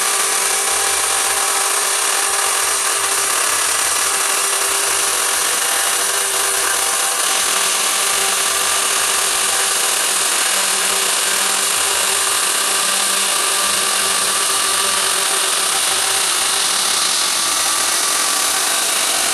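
Large chainsaw running steadily as it cuts through a stack of wooden planks.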